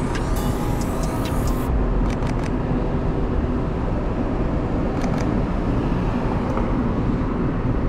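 Sony A7 IV's shutter clicking in quick runs of two or three, about two seconds in and again about five seconds in, over a steady rumble of street traffic.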